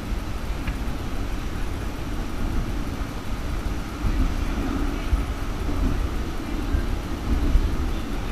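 Interior running noise of a Bergen Bybanen light-rail tram (Stadler Variobahn) moving along street track: a steady low rumble of wheels on rail and drive equipment, a little louder from about four seconds in.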